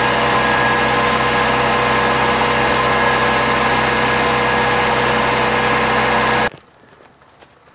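Off-road vehicle's engine idling steadily. It cuts off abruptly about six and a half seconds in, leaving only faint clicks.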